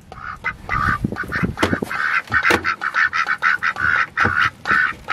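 Ducks quacking in quick succession, a few calls a second, getting busier about two seconds in, with a few sharp knocks as the wooden coop door is handled.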